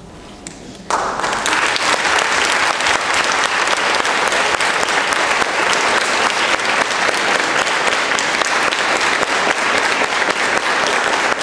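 A large group applauding, starting suddenly about a second in and continuing as a steady, dense clapping.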